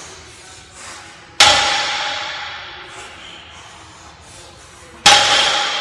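Barbell loaded with metal weight plates set down on the gym floor twice during deadlift reps: two sharp metallic clangs about three and a half seconds apart, each ringing on as it fades.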